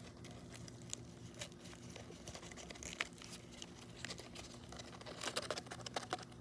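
Toy packaging and paper being handled: crinkling and rustling with scattered light clicks, busiest about five seconds in.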